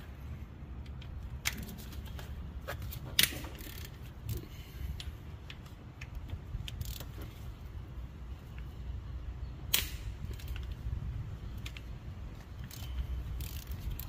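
Hand tools working on engine bolts: a socket ratchet on an extension and a combination wrench giving scattered metallic clicks and clinks, with two sharper knocks about three seconds in and near ten seconds, over a steady low rumble.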